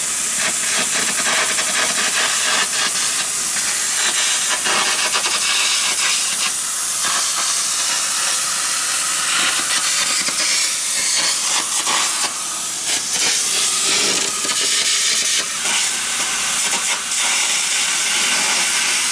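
Air carbon arc gouging on a steel truck frame rail: a loud, steady hiss of compressed air over the crackling arc as the bad weld metal and crack are blown out. This gouging prepares the fatigue-cracked rail for an open V butt weld.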